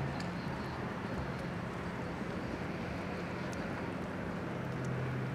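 Steady outdoor background noise: a continuous hiss with a low drone underneath.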